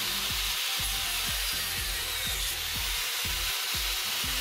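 An angle grinder's cut-off disc cutting into the metal door-hinge limiter, a steady hissing grind with a faint high motor whine, while the hinge is cut open to reach the roller inside. Background music plays underneath.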